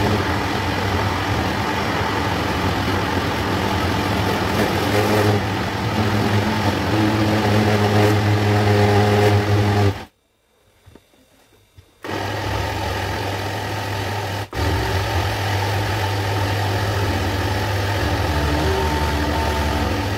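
Electric countertop blender running at full power, pureeing tomatoes, red peppers and onions into a smooth paste. It runs for about ten seconds, stops for about two, then starts again and runs on to the end.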